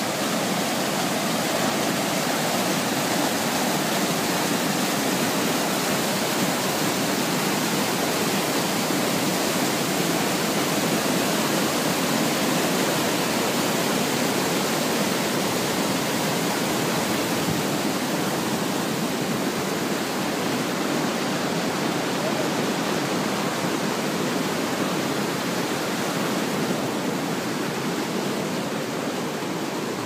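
Mountain stream rushing over boulders in small white-water cascades: a steady, loud rush of water that grows slightly softer near the end.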